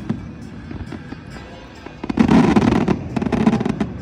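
Fireworks going off: a few scattered pops, then about two seconds in a loud, dense burst of crackling that lasts nearly two seconds.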